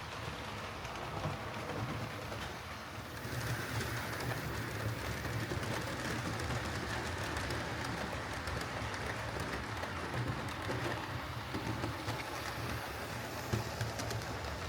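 Hornby OO gauge model steam locomotive and tender running on track: a steady motor hum with wheel rumble on the rails, growing louder about three and a half seconds in.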